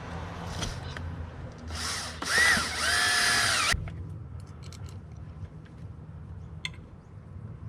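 Power drill driving a screw into a wall plug: the motor whirs briefly, then runs up to speed for about a second and a half before stopping abruptly. Faint clicks and handling noises follow.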